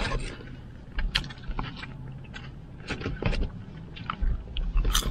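Fingers picking fries out of a cardboard fry tray: scattered light crinkles and clicks of the tray and food being handled, with low bumps from the tray and hands knocking near the microphone, and mouth sounds of eating a fry near the end.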